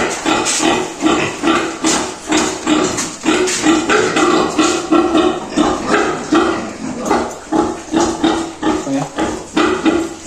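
Piglets squealing in a steady run of short, loud cries, about two a second.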